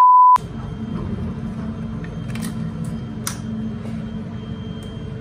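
A short, loud, pure test-tone beep on a TV test-card transition, cut off after under half a second. It is followed by a steady low machine hum with a couple of sharp clicks.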